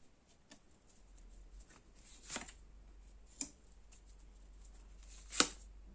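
Tarot cards being handled, drawn and laid down: four soft snaps and taps, the loudest about five seconds in, over a faint low hum.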